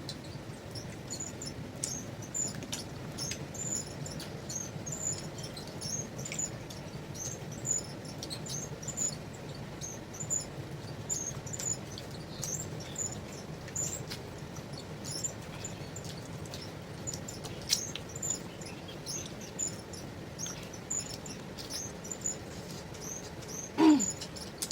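Eating noises: irregular small clicks and wet smacks of chewing and lip-smacking as luchi and chicken curry are eaten by hand, over a low steady hum. A brief voice sound comes near the end.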